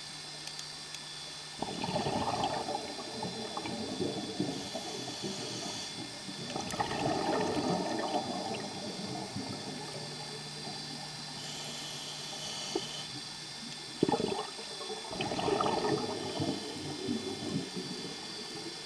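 Scuba diver breathing through a regulator underwater: three long bursts of bubbling exhaled air a few seconds apart, with quieter hissing between them. There is a brief sharp knock about fourteen seconds in.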